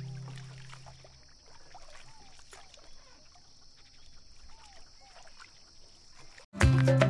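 Faint wetland ambience: a steady high insect buzz with many short chirping calls and small clicks. A guitar tune fades out at the start, and loud Latin-style music starts suddenly near the end.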